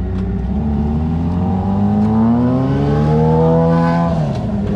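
A sport motorcycle idles steadily while another motorcycle's engine rises in pitch and grows louder as it accelerates past. Its pitch drops sharply and it fades about four seconds in.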